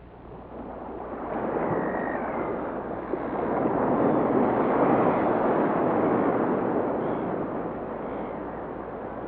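Sea surf: a wave swelling in, loudest about halfway through, then slowly washing back and fading.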